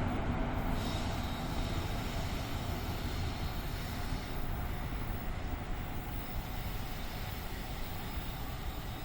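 A passing train's rumble, slowly fading as it moves away, with no horn.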